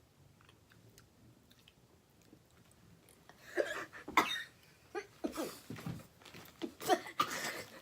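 Quiet mouth clicks at first, then from about three seconds in a run of wordless coughs and mouth noises from people tasting bacon-flavoured cotton candy.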